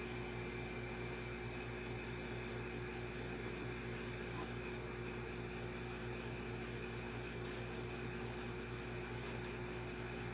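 Steady background hum and hiss with a low buzz, with a few faint ticks in the second half.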